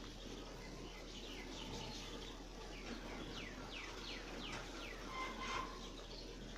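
Birds chirping: a run of short, quick chirps that each drop steeply in pitch, over a steady low hum.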